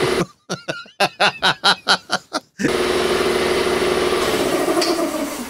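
Garage air compressor running loudly, kicked on by accident. About half a second in it gives way to a short burst of laughing lasting about two seconds. The compressor then runs again and winds down with a falling pitch near the end.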